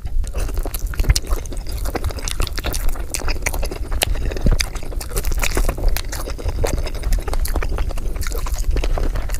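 Close-miked chewing of breaded fried chicken dipped in ranch dressing: a loud, dense run of wet mouth sounds and sharp crunchy clicks.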